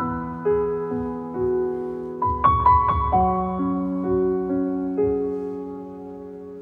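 Background music: a slow, gentle solo piano piece, single notes and chords struck and left to ring.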